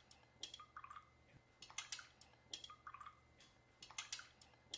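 A thin stirring stick clinking lightly against small drinking glasses as it stirs pH indicator drops into the water, one glass after another. The clinks are faint and short, each with a brief glassy ring, and come in small groups about once a second.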